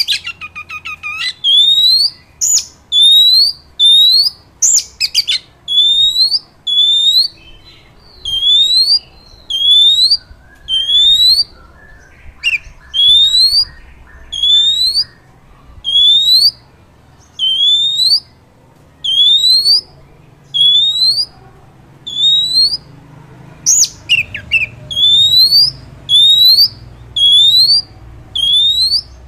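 Oriental magpie-robin singing a long series of loud, rising whistled notes, a little more than one a second, broken by a short dry rattle about twelve seconds in and a harsh note about twenty-four seconds in.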